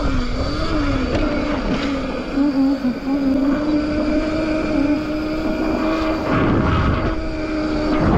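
Heybike electric bike's motor whining while riding, the pitch wavering for the first couple of seconds and then holding steady, over wind noise on the microphone. A louder rumble comes about six seconds in.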